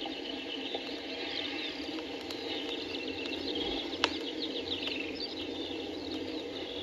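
Many small birds chirping rapidly over a steady low background noise, with one sharp click about four seconds in.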